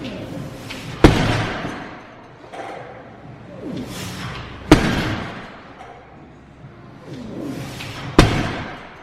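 Heavy gym weights set down hard on the floor three times, about three and a half seconds apart, each a loud slam that rings off briefly.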